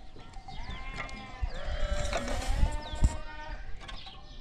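Flock of sheep and goats bleating, several animals calling over one another, thickest and loudest in the middle. A few dull low knocks sound among the calls.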